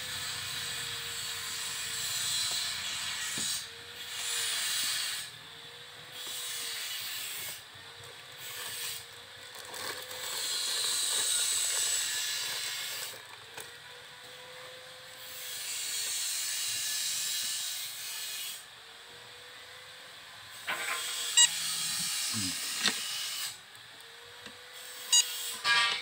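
Hissing noise in several bursts of a few seconds each, starting and stopping abruptly, with a few sharp clicks near the end.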